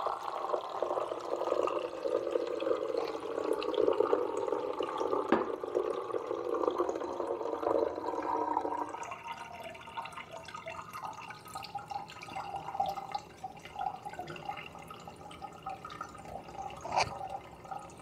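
Ginger-lemon liquid poured from a glass measuring jug through a stainless steel funnel strainer into a plastic bottle. The stream is heavier for about the first half, then thins to a lighter, broken trickle.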